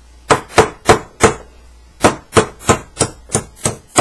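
Hammer striking a pin punch to drive the firing-pin retaining pin out of an AK-47 type rifle's bolt, the bolt head held in the cleaning-kit tube. There are sharp metallic taps, four of them, a short pause, then about seven more at roughly three a second.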